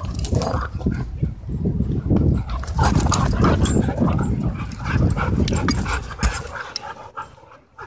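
A German Shorthaired Pointer and a pit bull-type dog play-fighting right against the microphone: a dense run of low rumbling, mouthing and scuffling sounds with many small knocks. It eases off near the end.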